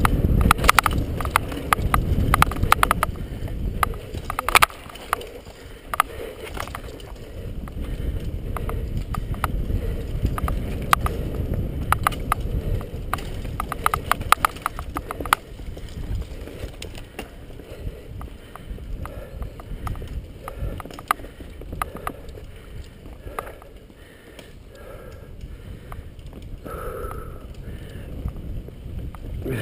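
Mountain bike riding fast down a dirt forest trail: a low rumble of tyres and air over the handlebar-mounted camera, with dense clattering rattles as the bike and camera shake over bumps. The rattling is heaviest at the start and again about halfway, and the ride runs quieter in the second half.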